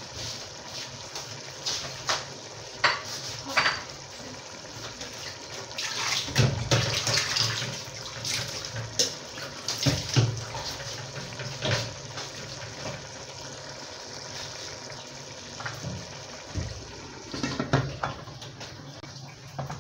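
Steady watery hiss with scattered clinks and knocks of pots and utensils. Near the end the metal lid of the stew pot clatters as it is handled.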